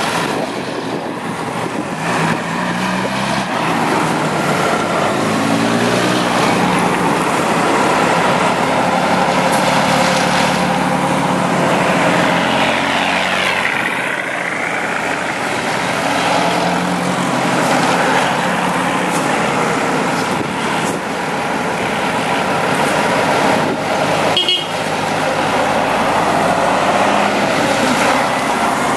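Mercedes-Benz Unimog trucks driving past one after another, their engines running and rising and falling in pitch as each pulls by. A short, sharp high blip sounds about two-thirds of the way through.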